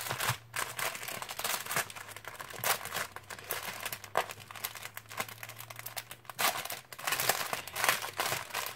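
Clear plastic sachets of diamond-painting drills being handled, crinkling and rustling in irregular bursts that get louder near the end.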